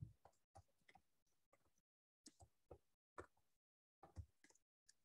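Faint computer keyboard keystrokes: a run of quick taps in small groups with short pauses between them, as a line of code is typed.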